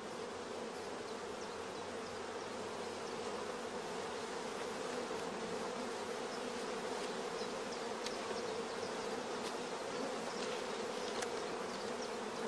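Steady buzzing of a crowded queenless honey bee starter colony, the loud hum of orphaned bees, with a few faint clicks in the second half as wooden hive parts are handled.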